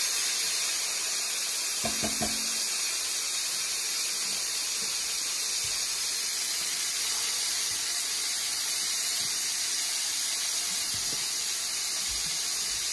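Diced bacon sizzling steadily as it fries in hot oil in a wide frying pan, the fat starting to render out.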